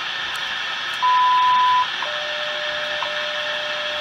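Hallicrafters S-120 tube shortwave receiver tuned to the WWV time signal on 20 MHz, through steady static hiss with a short tick each second. About a second in a high beep sounds for just under a second, WWV's top-of-the-minute marker, and a steady lower tone follows to the end.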